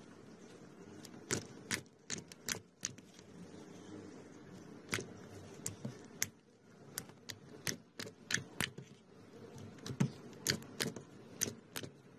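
Fingers pressing and stretching clear slime, giving many sharp, irregular sticky clicks and pops.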